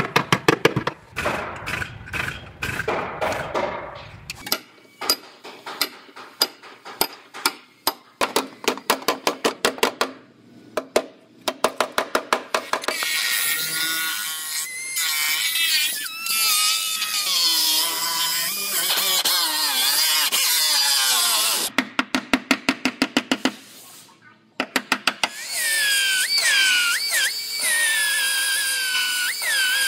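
A steel body hammer knocks on a car's crushed sheet-metal wheelhouse in quick runs of sharp blows. About thirteen seconds in, a pneumatic cut-off wheel grinds through the quarter panel's steel for about eight seconds. After a few more knocks, an air belt sander starts up with a whine that wavers up and down.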